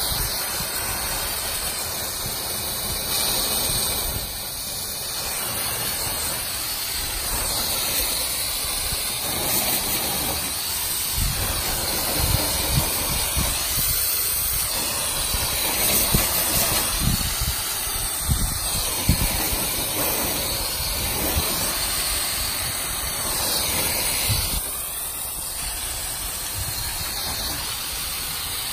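Steady hiss of water spraying onto a car's painted door panels and splashing off, with a few dull thuds midway.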